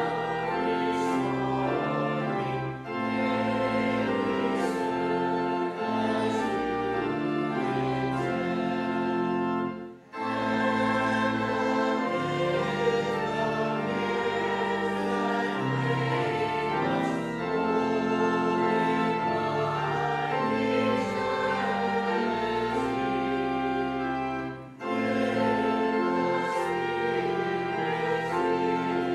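Congregation singing a hymn with organ accompaniment, held notes phrase by phrase, with short breaks between lines about 3, 10 and 25 seconds in.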